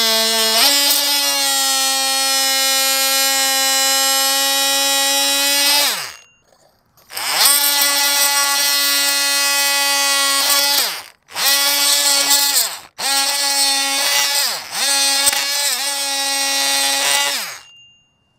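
Ridgid oscillating multi-tool with a plain, toothless scraper blade running in a steady high buzz, scraping hardened but still slightly soft epoxy from a teak toe rail joint. It stops and restarts three times, and its pitch sags briefly twice as the blade bites.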